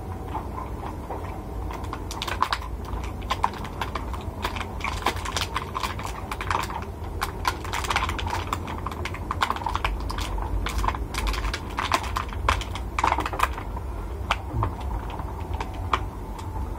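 Close-up eating sounds of grilled chicken eaten by hand: a quick, irregular string of chewing clicks and smacks, thinning out near the end, over a steady low hum.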